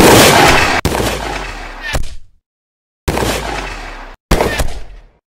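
Sound-effect rifle gunfire: a loud shot with two more following over the next two seconds, then after a gap two further shots about a second apart. Each shot trails off into dead silence.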